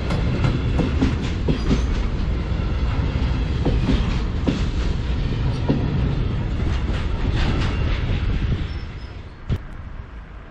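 Covered freight wagons rolling past at close range, their wheels clacking irregularly over the rail joints and the crossing. The sound falls away about eight and a half seconds in as the last wagon passes.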